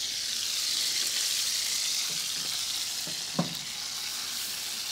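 Food sizzling steadily in hot pans on a gas range, with the heat just turned up to finish deglazing. One brief knock about three and a half seconds in.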